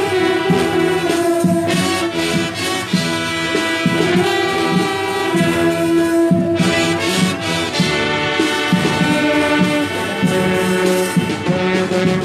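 Latin brass band playing: trumpets and trombones in full ensemble over a repeating low riff and a percussion beat.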